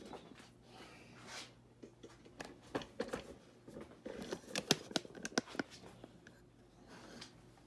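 Scattered clicks, light knocks and rustling of things being handled and moved about, busiest from about two and a half to five and a half seconds in, over a faint steady hum.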